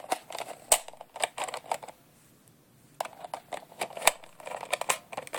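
Plastic Nerf shells being handled and pushed into a Nerf Hawk ammo clip: quick clicks and plastic clatter in two bouts, with a short pause between.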